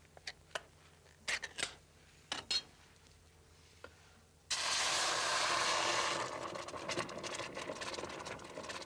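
Small metallic clicks and taps as a tin can is handled over a pot. About four and a half seconds in, a sudden loud sizzle starts as the can's contents hit the hot pot on an electric hob. It eases after a couple of seconds into a softer, crackling sizzle.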